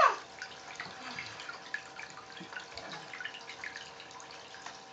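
Water trickling and dripping from a bath spout toy into its cup and the bathwater, with small scattered splashes, over a faint steady hum.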